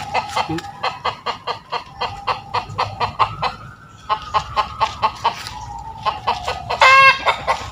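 Chickens clucking in a quick, continuous run of short clucks, several a second, with a louder, drawn-out call near the end.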